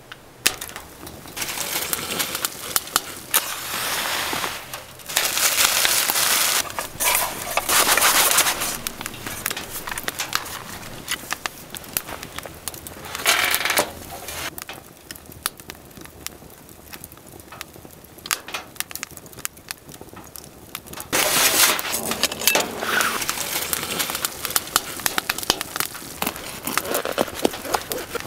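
Camp cooking sounds: many sharp clicks and knocks throughout, with several stretches of rustling noise one to two seconds long.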